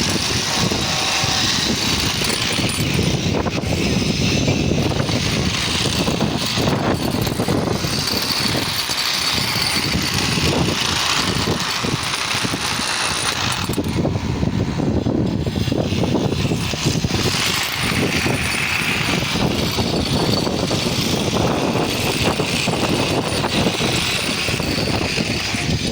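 Construction machinery running, a steady mechanical din full of rapid, dense clattering.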